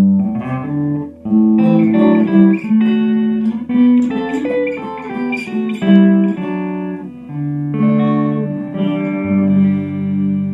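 Hand-built solid-body electric guitar on its neck humbucker alone, played through a Fender Blues Junior amp: a run of chords and single notes with a jazz sound. A last chord about nine seconds in is left ringing.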